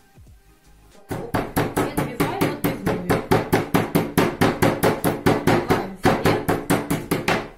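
Metal meat mallet pounding thin slices of chicken breast on a wooden cutting board in a quick, steady rhythm of about six blows a second, starting about a second in.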